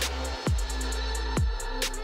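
Background electronic music: deep bass drum hits that drop in pitch, twice, over steady synth tones and quick hi-hat ticks.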